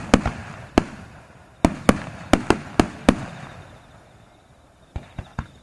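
Aerial fireworks shells bursting in quick succession, about nine sharp bangs in the first three seconds, each trailing off in a rumble. Then a short lull and three fainter bangs near the end.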